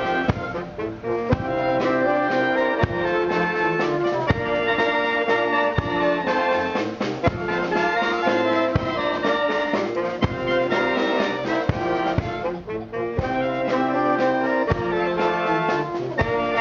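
A brass band plays a slow piece, with held brass chords over regular drum beats, and breaks briefly about three-quarters of the way through.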